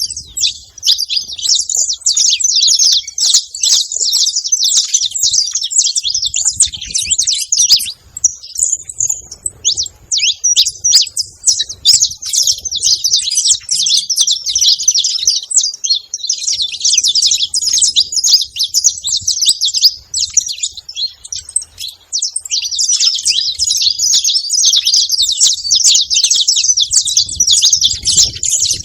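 Saffron finch chatter: dense, rapid high chirps and twitters, thinning briefly about eight seconds in and again about twenty seconds in.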